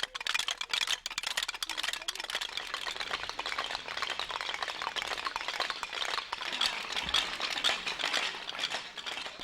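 Many hand-held wooden clappers, each a small board with a handle and a loose wooden hammer that knocks against it when shaken, clattering together in a dense, continuous rattle of knocks.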